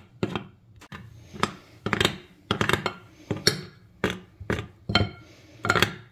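A spoon knocking and scraping against a mixing bowl while stirring flour into soft dough, about two knocks a second.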